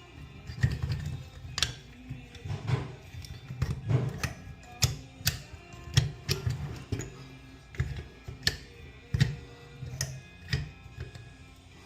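Irregular sharp clicks and knocks, about one or two a second, some with a low thud, over faint background music.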